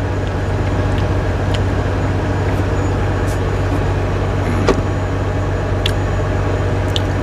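Steady low hum of an idling truck engine, with a few light clicks about two thirds of the way through.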